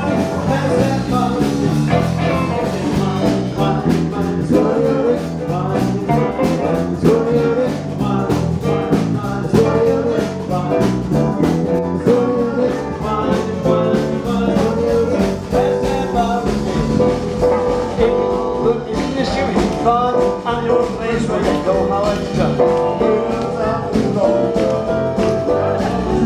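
Live blues band playing: electric bass, drums and keyboard, with a man singing lead over a steady beat.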